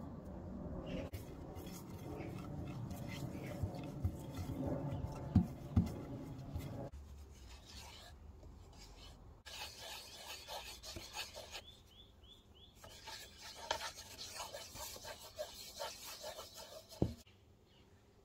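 Rubbing and scraping of cooking utensils against pans, with a couple of sharp knocks in the first part and a single thump near the end.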